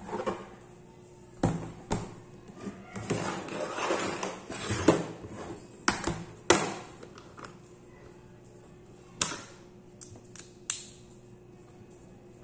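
A laptop being handled on a desk mat: sharp knocks and a scraping slide as it is flipped over onto its lid. A few isolated clicks follow as a screwdriver is picked out of a plastic bit case.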